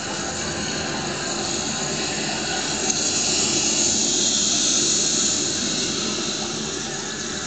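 A steady rushing hiss that swells about three seconds in and eases off near the end.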